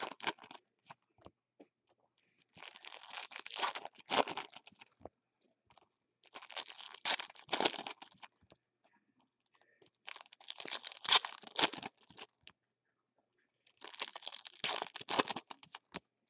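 Foil trading-card pack wrappers being torn open and crinkled, one pack after another: four bursts of crackling, each about two seconds long, with short quiet gaps between them.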